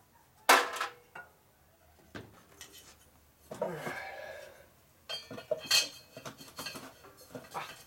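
Metal hand tools and parts clanking against the cast-iron air compressor pump during disassembly: a sharp clank about half a second in, a drawn-out scrape around the middle, then a busy run of clinks and rattles with a metallic ring.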